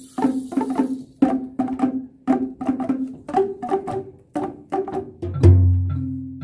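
Boomwhackers, tuned plastic tubes, struck against the floor by several players in a quick, even rhythm of short, hollow, pitched notes. About five seconds in, a deep ringing low note comes in under them.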